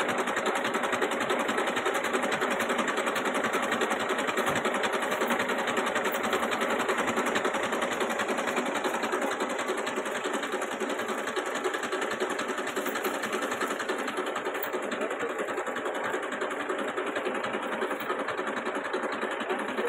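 Tractor's diesel engine idling: a fast, even chugging that goes on steadily and drops slightly in level about halfway through.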